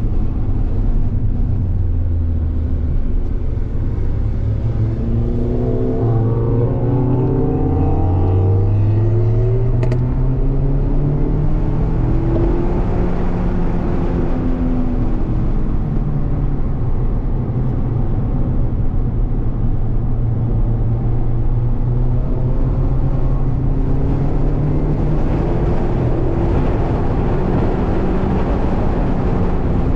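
Mazda MX-5's four-cylinder engine heard from inside the cabin at racing speed, its pitch rising several times as it accelerates through the gears and holding steady in between, over steady road and wind noise.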